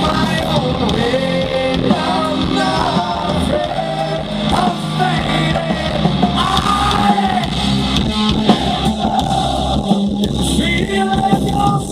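Hard rock band playing live: a male lead singer singing into a handheld microphone over electric guitar and drums, recorded from the audience.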